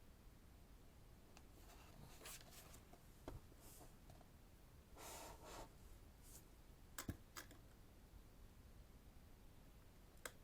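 Faint paper handling: pages of a heavy photobook being turned, a few soft rustles, one about half a second long, and light clicks and taps in between.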